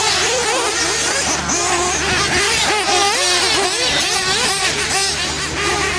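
Several 1/8-scale RC truggies' small nitro engines racing together, their high-pitched whines rising and falling as they throttle up and down around the track, over a steady low hum.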